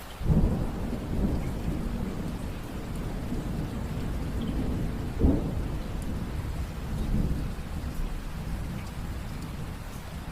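Rain falling steadily with thunder: a low rumble breaks in suddenly just after the start, a sharper crack comes about five seconds in, and a smaller swell follows near seven seconds before the thunder dies away under the rain.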